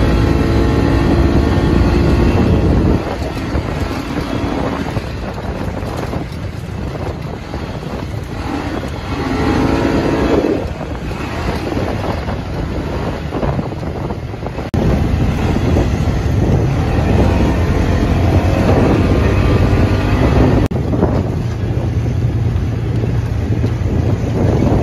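UTV (side-by-side) engine running as it drives along a dirt trail, with heavy wind noise on the phone's microphone. The level drops about three seconds in and comes back up about halfway through, where the clips change.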